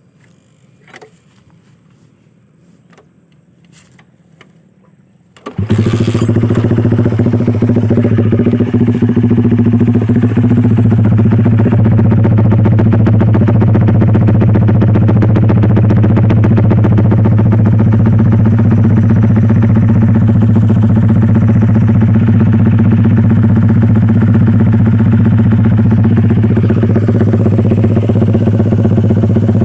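Honda Sonic single-cylinder motorcycle with a Fanterra Jigsaw aftermarket exhaust: a few faint clicks, then the engine starts abruptly about five seconds in and idles steadily and loudly through the exhaust.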